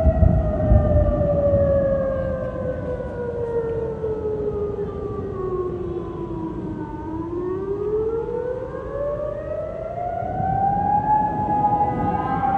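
Civil defense air raid siren wailing an alert. Its pitch slowly falls for about seven seconds, then rises again and levels off, and a second siren tone overlaps near the end. Low rumbling noise sits under the first second or so.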